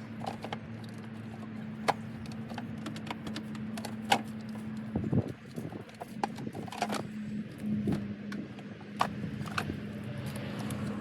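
Irregular clunks and sharp taps of a car battery and its fittings being handled and set down into the engine-bay battery tray, over a steady low hum.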